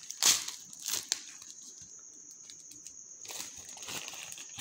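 Plastic packaging bag crinkling and rustling as it is handled. The loudest rustle comes about a quarter second in, with another around a second in and more crinkling near the end.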